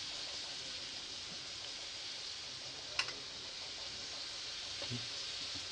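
Sliced onions sizzling in coconut oil in a metal kadai, a steady frying hiss, with one sharp click about three seconds in.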